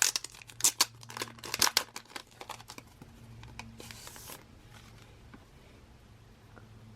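Paper and plastic packaging of a postcard set being unwrapped and handled: a run of crinkling and rustling clicks, then a brief rasping noise about four seconds in, after which it goes quieter over a faint steady hum.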